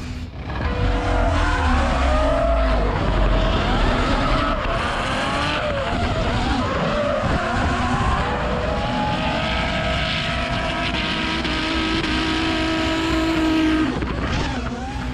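Drift car engine revving up and down, with its tyres squealing and skidding.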